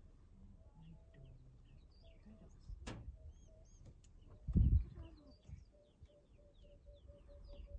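Small birds chirping, with a short piping note repeated about four or five times a second near the end. A loud low thump comes about four and a half seconds in.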